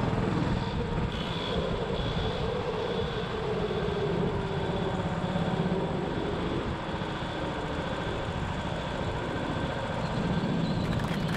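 Go-kart running laps at speed, heard from the driver's seat: steady motor and tyre noise with a pitch that rises and falls through the corners.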